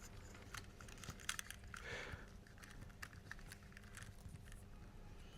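Faint small clicks and taps of tiny metal and plastic parts being handled as the motor shield is fitted back onto a Märklin model locomotive motor, with a brief soft scrape about two seconds in.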